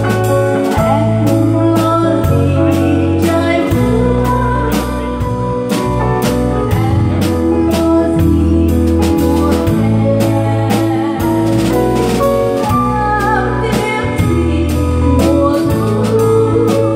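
Live band music: a woman sings into a microphone over piano and a drum kit keeping a steady beat, with a low bass line moving underneath.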